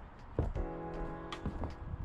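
Background music: held notes with sharp percussive hits about half a second and a second and a half in.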